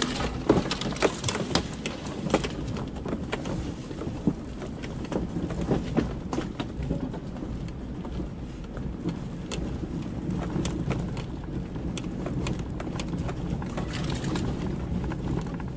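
Vehicle creeping over a rough, overgrown forest track: a steady low engine and road rumble with many irregular clicks and knocks of twigs, brush and debris against the body and under the wheels, thicker in the first few seconds.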